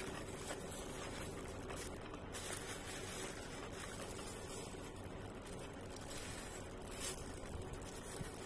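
Eating sounds: closed-mouth chewing and the rustle of a disposable plastic glove picking at rice and fried chicken in a foam takeaway box, with small scattered rustles and clicks over a steady background hiss.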